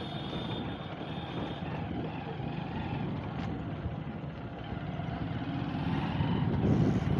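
Motorcycle running along a street, a steady engine and road noise, growing somewhat louder in the last couple of seconds.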